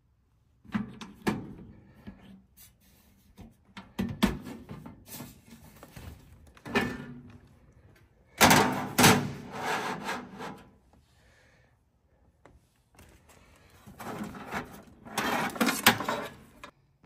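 Handling of a black metal equipment rack cabinet: sharp clicks and knocks from its door and latches, then louder scraping and rustling as a coil of cables is pulled out against the rack.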